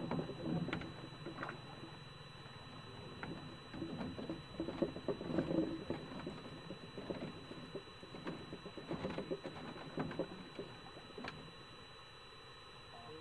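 Fishing reel being cranked in spells while a hooked fish is played: quick rattling of the reel's gears in three bursts with short pauses, and a few sharp clicks.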